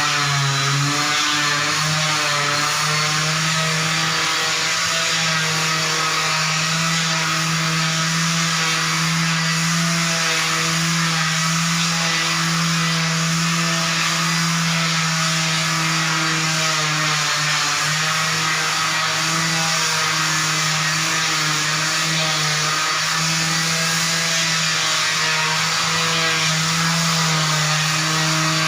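Electric floor sanding machine running steadily on a parquet floor, a loud motor hum with grinding hiss, its pitch wavering slightly as the load changes.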